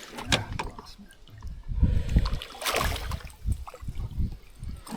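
Water lapping and slapping against the hull of a small aluminium boat, with irregular low knocks and a few sharp clicks.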